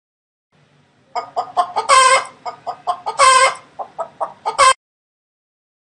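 Domestic hen clucking: a quick run of short clucks broken by two longer, louder calls about a second apart, stopping abruptly.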